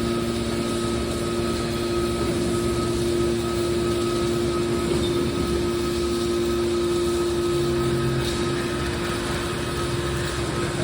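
Steady machine hum of a hydraulic scrap-metal baler's power unit running, holding a constant pitch, with a faint low tone coming in and out near the end.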